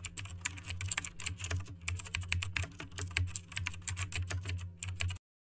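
Fast typing on a computer keyboard: a dense, uneven run of key clicks over a low steady hum, stopping abruptly near the end.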